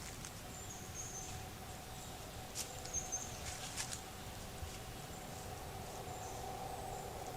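Quiet woodland: small birds give a few faint, short, high chirps, and several light clicks or rustles come in the middle, over a steady faint hum.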